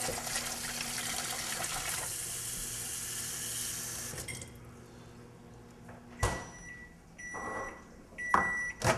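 Kitchen faucet running water into a bowl for about four seconds, over the steady hum of a running microwave oven. About six seconds in the microwave stops with a click and beeps three times, then a sharp clunk near the end.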